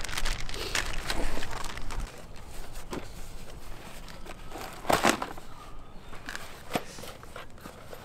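A small cardboard box and plastic packaging being handled and opened by hand: rustling and crinkling broken by scattered sharp clicks, the sharpest about five seconds in.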